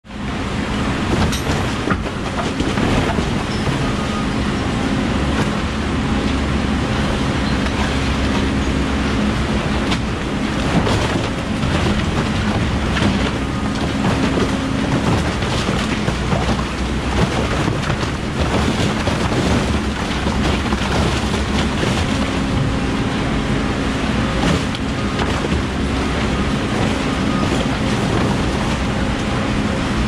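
REB-2 two-ram scrap baler running steadily, its low machine hum dropping away around the middle and returning, while loose cardboard (OCC) tumbles and clatters into the hopper.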